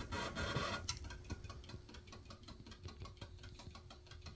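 DIY pulse motor with a 3D-printed 13-magnet rotor, turned up to full power, running as a rapid, even train of clicks with a faint steady hum under it, almost like a locomotive.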